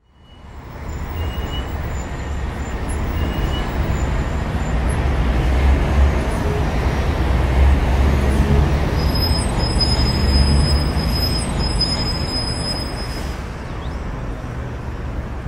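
Heavy diesel engines of asphalt paving equipment running steadily, a deep rumble that fades in at the start and grows louder toward the middle.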